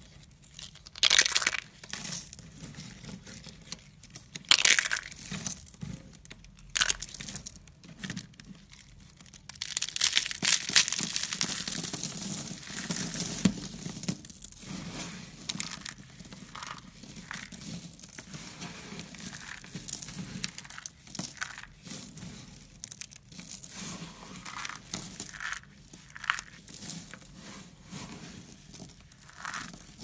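Hands crushing and crumbling brittle dry flakes: a few sharp crunches in the first several seconds, a long run of dense crunching about a third of the way in, then lighter crackling and rustling as the flakes are pressed and sifted.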